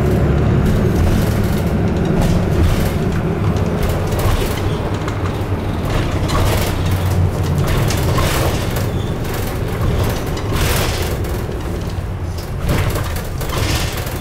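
Inside the passenger cabin of a moving city bus: a steady low rumble of engine and road noise, with frequent short rattles and clatters.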